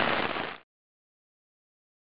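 Steady hiss of rain falling on a wet road and grass, cut off abruptly about half a second in, followed by total silence.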